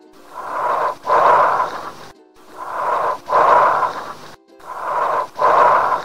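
Bronchial breath sounds heard through a stethoscope: each breath is a shorter inhalation, a brief pause, then a longer, louder exhalation, repeating about every two seconds, two and a half breaths in all. Faint background music plays underneath.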